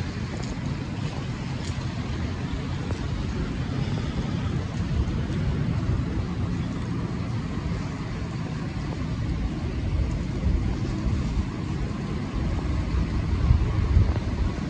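Wind buffeting the microphone as a low, uneven rumble over the faint hiss of a wet city street, with a few louder gusts near the end.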